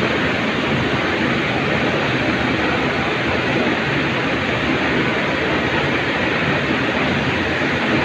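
Steady factory background noise: an even rumble and hiss with a faint low hum, unchanging throughout and with no distinct knocks or clicks.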